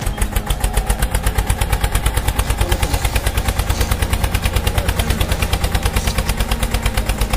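Rapid, even engine chugging of about seven to eight pulses a second, like a tractor engine running, starting abruptly over a steady background music bed.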